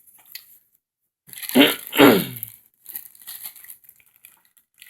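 Small toy pieces being handled, with crinkling and crackling. The loudest part is a sound falling in pitch, twice in quick succession, about a second and a half in.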